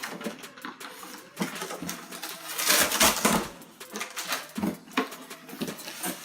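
Box packing being handled and pulled out of a cardboard box: scattered knocks and clicks, with a louder stretch of scraping and rustling about three seconds in.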